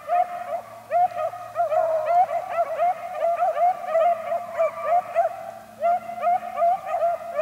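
A pack of beagles baying together as they run a rabbit's track, several overlapping voices giving short, repeated bawls in a continuous chorus: the hounds are on the scent and in pursuit.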